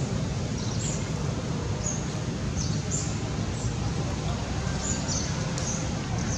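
Short high bird chirps, repeating every half second to a second, over a steady low background rumble.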